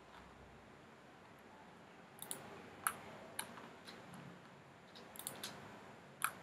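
Sharp, separate clicks of a computer mouse and keyboard being worked, irregular and starting about two seconds in, over a faint steady room hiss.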